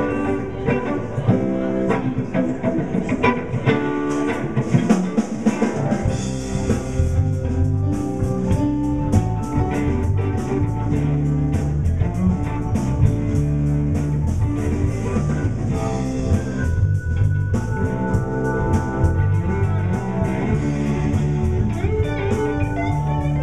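Live blues band playing an instrumental passage on electric guitars, bass, drums and keyboard. The band comes in fuller, with a heavier bottom end, about six seconds in.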